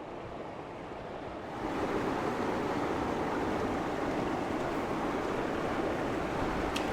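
South Platte River flowing: a steady rush of water that grows louder about a second and a half in.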